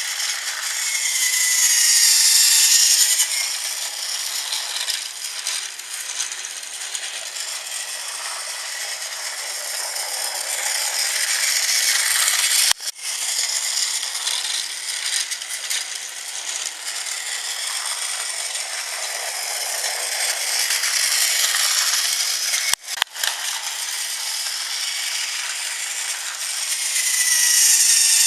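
Battery-powered Thomas Trackmaster toy train running on its plastic track: the small motor and gearbox whir while the wheels rattle. The sound swells louder about two seconds in and again near the end, and cuts out for an instant twice.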